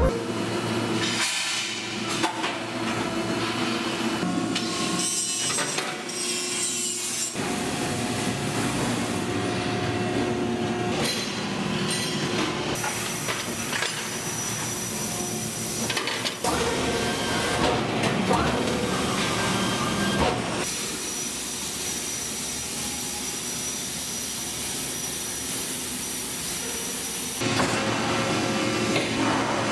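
Metalworking shop machinery running: a string of short machine sounds that change every few seconds, with a steady high whine through the middle stretch.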